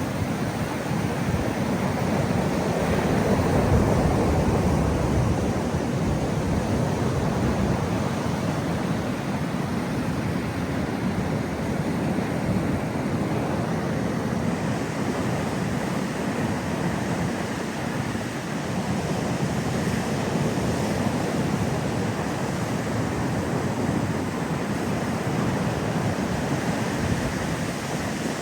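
Ocean waves breaking on the shore in a steady wash that swells a little about four seconds in, with wind buffeting the microphone.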